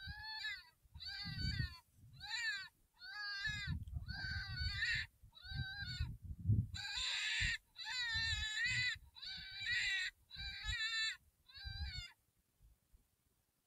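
Electronic predator caller playing a prey distress sound: about a dozen short, high-pitched, wavering cries, each under a second, that stop about twelve seconds in. A low rumble runs under many of the cries.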